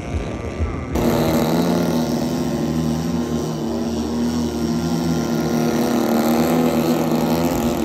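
Small petrol engine running at a steady speed, starting abruptly about a second in.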